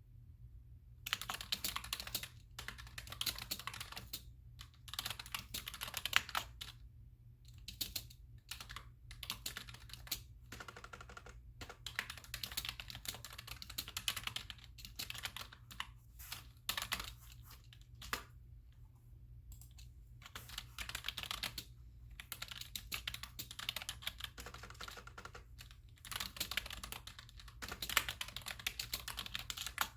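Computer keyboard typing: quick runs of keystrokes in bursts with short pauses, starting about a second in.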